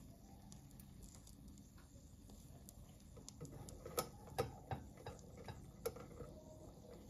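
A few light, irregular clicks and taps over a quiet kitchen background, bunched in the second half, the sharpest about four seconds in.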